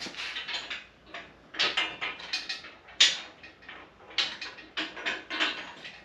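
Steel parts of a foldable 1-ton shop crane being folded up: a run of irregular metal clanks and rattles, the loudest about three seconds in.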